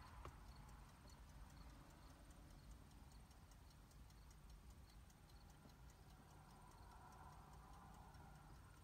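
Near silence: a faint low rumble with a light, fast, regular ticking, about three ticks a second.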